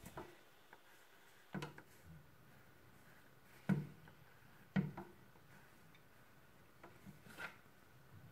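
Quiet drawing with a pen on paper, with four or five soft knocks or taps spread through it, the loudest about halfway in.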